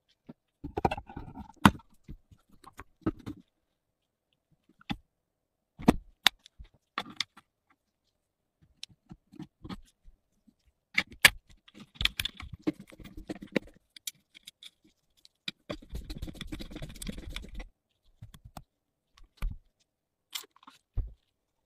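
Sheet-metal lantern parts being handled and fitted: scattered sharp clicks and clinks of the battery bracket and contact strap against the metal case, with short scrapes between pauses and a denser scraping stretch of about two seconds past the middle.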